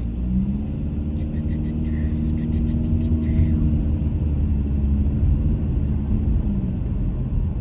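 Car engine and road rumble heard from inside the cabin as the car pulls away from a green light and drives on. The engine hum rises briefly as it accelerates, then holds steady over a heavy low rumble.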